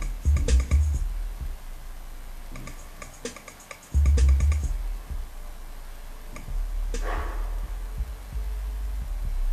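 Bass-test electronic music with deep sub-bass notes, loudest in two heavy hits about half a second and four seconds in, over sparse clicking percussion and a short swoosh near the end.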